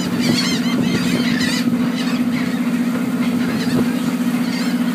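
Gulls calling over the boat, a rapid run of squawks in the first second and a half and a few more near the end, above the shrimp trawler's diesel engine running steadily.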